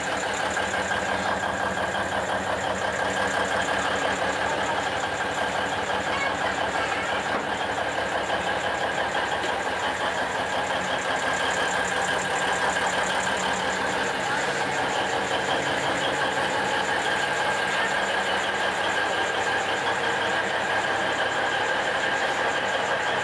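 Diesel engine of an Alishan Forest Railway train running steadily, with a rapid even pulse and a steady whining tone.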